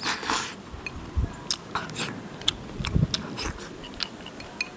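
Close-up eating sounds: rice soaked in beef stew sauce is shovelled from the bowl's rim into the mouth with chopsticks, a short slurping sweep at the start, then chewing with small scattered clicks.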